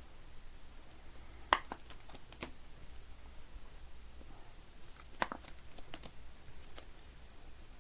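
Trading cards being handled and slipped into sleeves: a few light clicks and taps scattered over a faint steady hiss.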